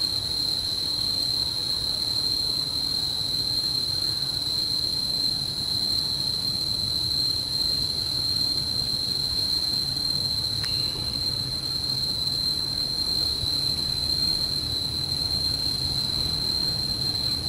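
Insects keeping up a steady, unbroken high-pitched trill, over a faint low rumble.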